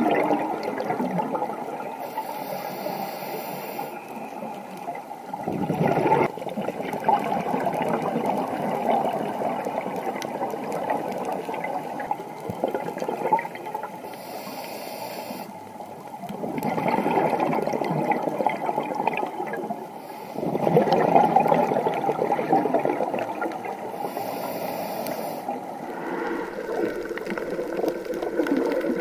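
Scuba diver breathing through a regulator, heard underwater through the camera housing: short hissing inhalations alternate with longer bubbling rushes of exhaled air, in slow cycles about ten seconds apart.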